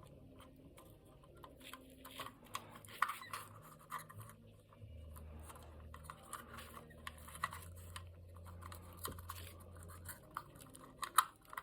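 Irregular scratching, rubbing and small clicks of wires and small electronic parts being handled and worked on a bench, with a few sharper ticks, one about three seconds in and one near the end, over a faint low hum.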